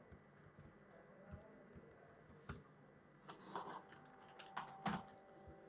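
Faint computer keyboard keystrokes, a few scattered clicks with a denser cluster near the end, as code is typed.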